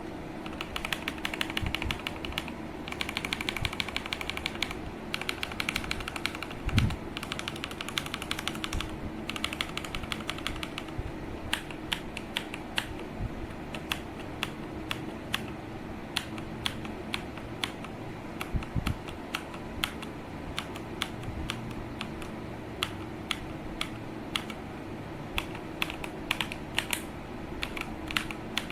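Typing on a mechanical keyboard with Akko V3 switches: fast, dense keystrokes for about the first eleven seconds, with one heavier thump about seven seconds in, then slower separate key presses, a few per second.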